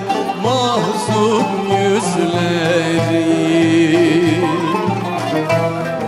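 Turkish Sufi hymn (ilahi) played live by a small traditional ensemble: an ornamented melodic line that bends and slides over a steady low drum beat.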